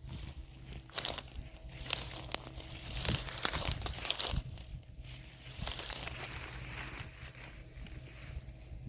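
Dry rustling and crinkling in several bursts, over a faint steady low hum.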